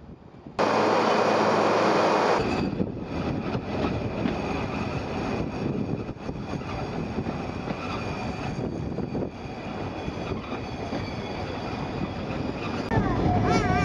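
Great Orme Tramway cable-hauled tramcar running on its rails: a steady rumble and clatter of wheels on track that starts abruptly about half a second in.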